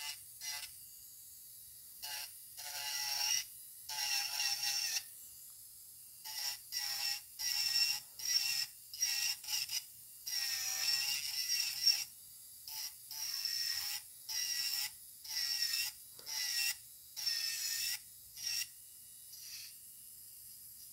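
Electric nail file (e-file) with a refiner bit carving grooves into acrylic: a high grinding whine that comes in about twenty short strokes, starting and stopping as the bit is pulled through each groove, the longest near the middle lasting almost two seconds.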